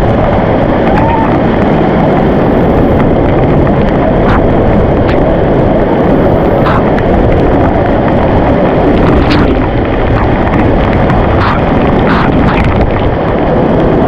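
Rushing water of a monsoon waterfall: a loud, steady roar, with a few faint ticks through it.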